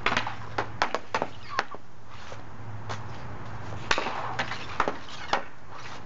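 Hockey stick blade slapping pucks on a shooting pad as shots are taken: a series of sharp clacks, several in the first second and a half, then another run about four seconds in.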